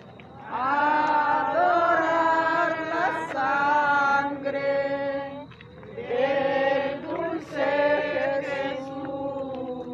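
Procession participants singing a hymn together in long held phrases, with a short breath pause about five and a half seconds in.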